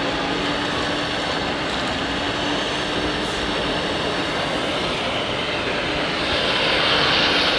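Radio-controlled model trucks running, a steady whirr of small electric motors and gearboxes with a hum. A high hissing whine grows louder about six seconds in.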